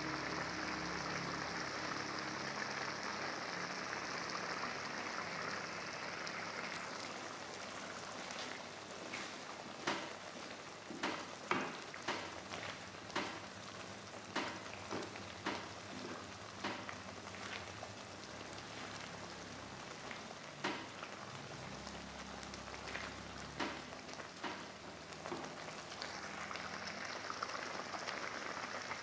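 Sambal of ground chili frying in oil in a pan: a steady sizzle that gives way after several seconds to scattered pops and spits, then a steady sizzle again near the end.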